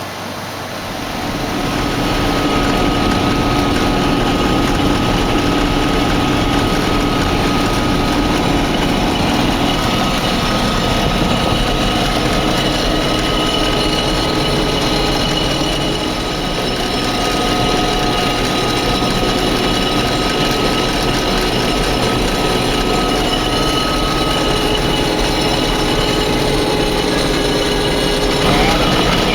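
Combine harvester running steadily through the wheat harvest, getting louder about a second in.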